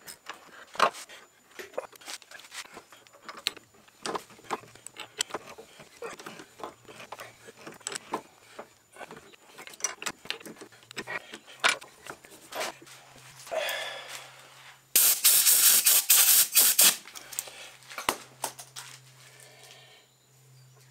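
Hand-threading a brass bar on a lathe with a tailstock die holder: a run of small metallic clicks, scrapes and rattles as the die holder is worked round and the brass and swarf are handled. Near the end comes a loud hiss lasting about two seconds.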